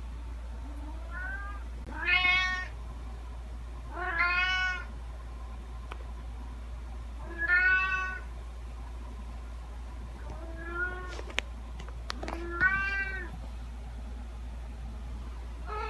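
Domestic cat meowing repeatedly, about six separate meows each about half a second long and rising then falling in pitch, roughly two seconds apart, some fainter than others. A few sharp clicks come between two of the later meows, over a steady low hum.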